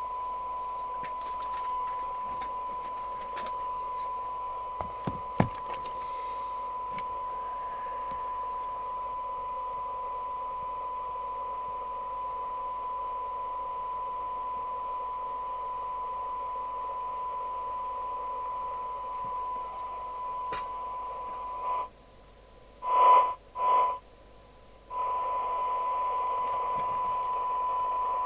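SMC Oscar 1 FM CB receiver playing a steady 1 kHz test tone through hiss from a weak 0.3 microvolt signal-generator signal. Near the end the squelch, being set at threshold, shuts the tone off, briefly opens twice in short louder bursts, then opens again.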